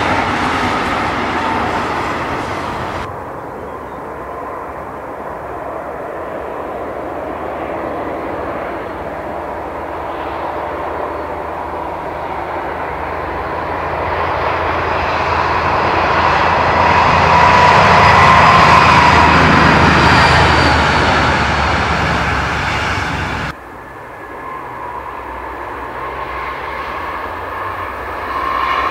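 DB class 218 diesel-hydraulic locomotive hauling a train of double-deck coaches, its engine running with a high whine that grows louder as the train approaches and passes about two-thirds of the way in. The sound then breaks off abruptly and a second train is heard approaching, growing louder near the end.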